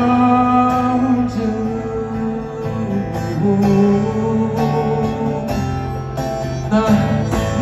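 Live band music: a male singer holding long, slow sung notes over strummed guitar chords, heard through the festival PA from within the crowd.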